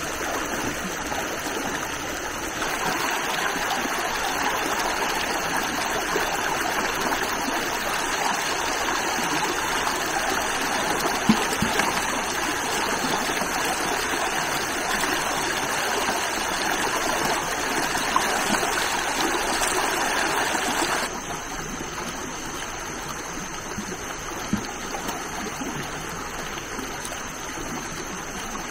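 Shallow, rocky stream running steadily over stones, with a few brief soft knocks. The water becomes a little quieter about three-quarters of the way through.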